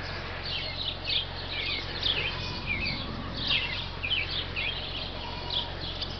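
Birds chirping busily, many short downward-sliding chirps overlapping one another, over a steady low hum.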